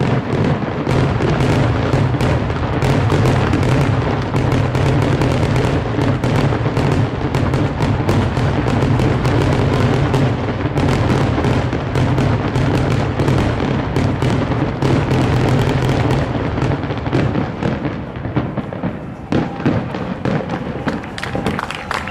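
Aerial fireworks firing in a dense, continuous barrage of booms and crackles, a grand finale. The barrage thins out into scattered bursts over the last few seconds.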